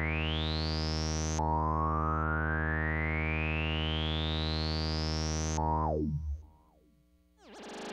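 Electronic synthesizer sound: a steady low drone under a slow rising sweep, which then drops quickly in pitch and dies out about six seconds in. After a moment of near silence, a hiss-like noise swells up near the end.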